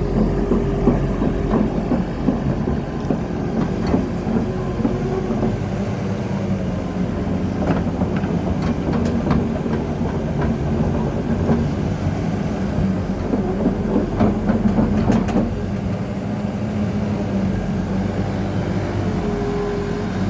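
Caterpillar 308D CR excavator's diesel engine running steadily, with scattered metallic clanks and knocks, most of them in the middle stretch.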